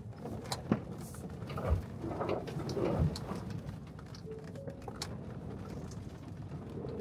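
In-cab sound of the Ford F-150 Lightning Switchgear electric truck sliding over a muddy dirt track: a steady rumble of tyres and suspension with dirt pattering and clicking against the body, and two heavy thumps a little over a second apart in the first half.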